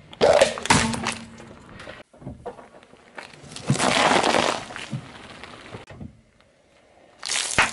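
Car tyre rolling over and crushing things in three bursts: a plastic candy cup cracking and splitting in the first second, broccoli crunching around the middle, and wrapped chocolate bars being flattened near the end.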